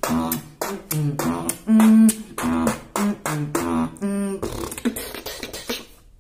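Solo beatboxing: sharp mouth-made percussion hits in a quick rhythm over hummed bass notes that step between pitches, closing on a buzzy bass note about four seconds in. After that comes a quieter stretch of hissing, noisy sounds without the pitched notes.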